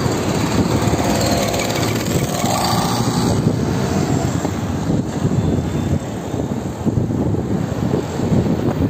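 Steady rumble of a moving road vehicle, with wind buffeting the microphone.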